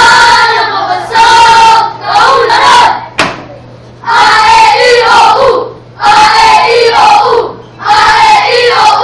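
A group of children chanting loudly in unison in short phrases with brief pauses; a single sharp smack about three seconds in.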